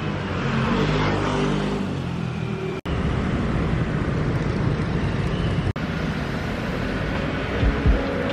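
Street traffic noise from cars running past, with a vehicle engine's hum in the first couple of seconds. The sound drops out for an instant twice.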